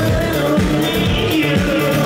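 Live electronic music played loud over a concert PA, with a steady heavy kick-drum beat under sustained synth tones and a wavering melodic line.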